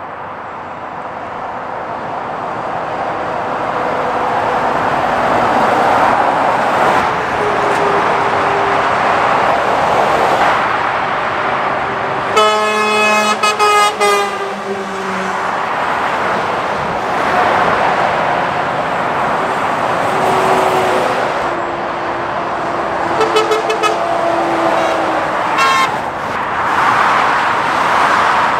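Lorries passing on a motorway: a steady rush of tyre and engine noise that builds over the first few seconds. About twelve seconds in, a truck's air horn sounds for two to three seconds. A second run of short horn toots follows about twenty-three seconds in.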